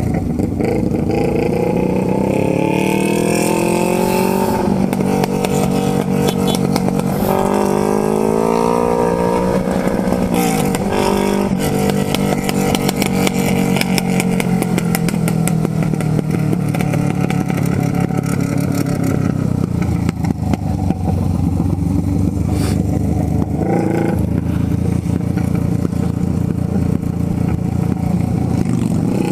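Yamaha XJ6's inline-four engine heard from the saddle while riding, revving up in pitch several times through the first part, then running more steadily at a held speed.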